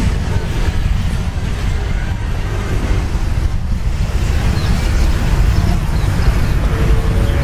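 Wind buffeting the microphone: a steady, loud, low rumble.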